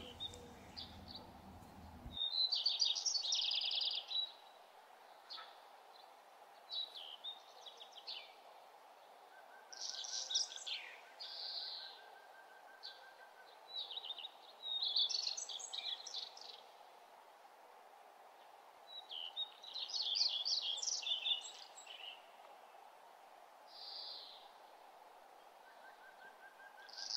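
Small songbird chirping: short, high, trilled phrases that come again every few seconds, over a faint steady hum.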